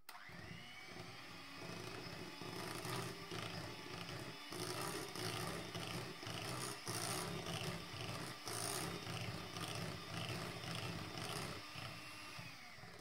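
Electric hand mixer running steadily, its twin beaters whisking butter, sugar, egg and flour into cake batter in a glass bowl. The motor spins up at the start and winds down near the end.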